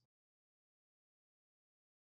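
Digital silence: no sound at all.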